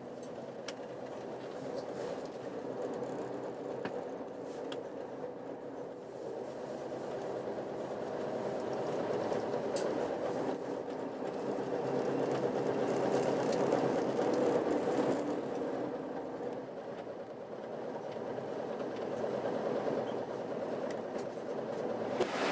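Inside a moving bus: a steady engine hum and road noise that grows louder and eases off again as the bus drives along.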